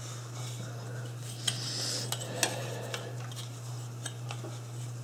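A few light, sharp clicks and taps of small tools and a flexible rule being handled on a workbench, over a steady low hum.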